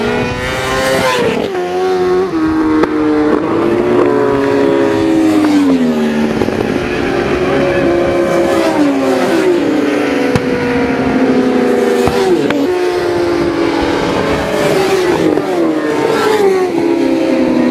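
Road-racing motorcycles pass at full speed one after another, each engine note dropping in pitch as it goes by. Several loud passes come in quick succession.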